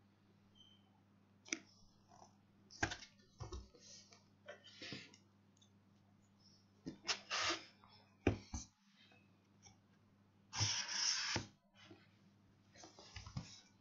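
Cardboard keyboard box being handled and turned over on a desk mat: irregular knocks, taps and short rustling scrapes, with a longer scrape of about a second near the ten-second mark.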